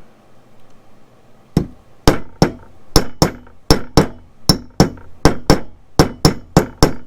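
Mallet striking a steel dome-shaped rivet setter, peening the end of a copper rivet over its washer into a smooth dome. About fifteen sharp taps, many in quick pairs, begin about a second and a half in.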